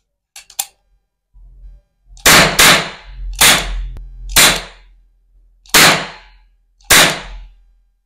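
Toy cap-gun revolver firing plastic ring caps: six sharp bangs, irregularly spaced over about five seconds, the first two close together, each with a short ringing tail. A couple of light clicks come before the first shot.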